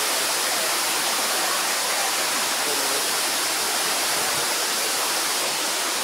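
Waterfall pouring down a rock face into a pool: a steady, even rush of falling water.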